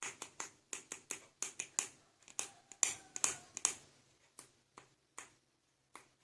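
A quick, irregular run of sharp plastic clicks and taps from small plastic toy figures being handled and set down, about three a second, thinning out after about four seconds.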